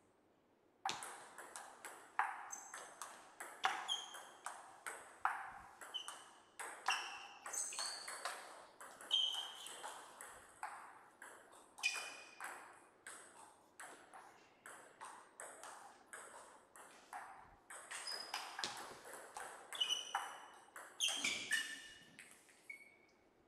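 Table tennis ball clicking off rubber paddles and the table in quick, irregular succession, some strikes with a short high ring. The clicks start about a second in.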